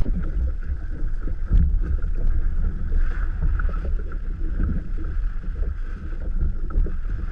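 Wind rumbling on the microphone over water noise from a kite-towed kayak moving on the water, with one short knock about a second and a half in.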